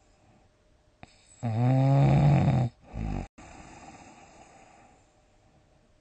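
A sleeper's loud snore: about a second and a half in, a pitched snore that rises at its start and holds for about a second, then a short low snort. A breathy sound follows and fades away.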